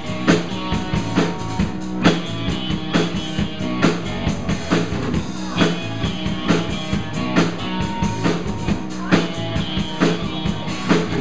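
Live band playing amplified music with a steady beat: drum kit with kick and snare, electric bass and electric guitar.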